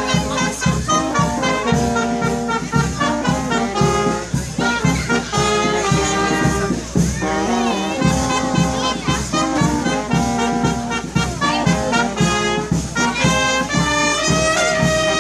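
Marching brass band playing a lively tune: trumpets, clarinet and a low brass horn over a steady beat.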